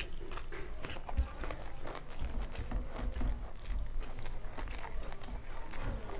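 Close-miked chewing of a mouthful of rice and curry, with irregular wet mouth clicks and smacks.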